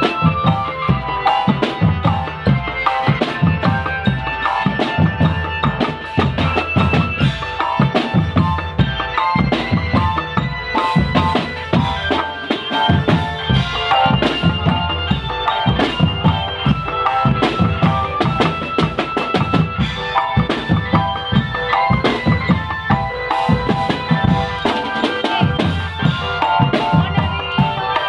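Marching drum band playing: snare, tenor and bass drums beating a dense, steady rhythm, with a tune of short pitched notes over the drums.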